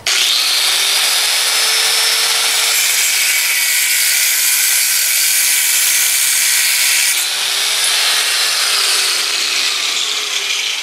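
Angle grinder with a cutoff wheel cutting through a thin metal tube: a loud, steady grinding hiss over the motor's hum. The hum dips and recovers as the wheel bites. The grinding eases a little about seven seconds in.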